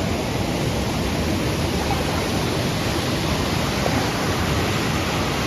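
Tomara Waterfall's falling water making a loud, steady rush, even and unbroken.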